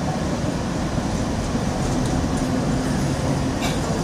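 Locomotive-hauled passenger coaches rolling past at close range: a steady rumble of wheels on the track. A steady hum comes in about halfway through, and there are a few faint clicks near the end.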